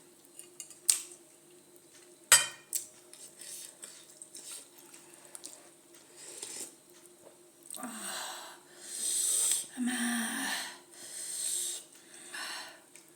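A utensil clicks against a dish a couple of times, then a person takes several sharp, hissing breaths in and out through the mouth, the burn of extra-spicy Buldak noodles.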